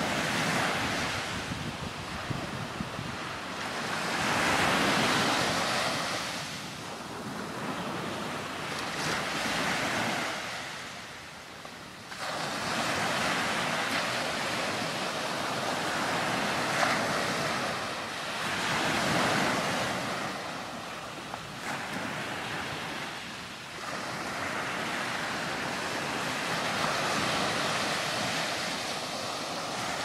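Ocean surf breaking on a sandy beach, each wave swelling and falling away every few seconds, with wind blowing across the microphone. The sound jumps up abruptly twice, near the middle and about three-quarters through.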